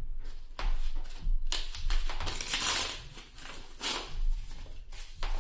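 Yu-Gi-Oh trading cards and their packaging being handled: irregular papery rustles, flicks and taps, with a denser crinkly rustle about two seconds in.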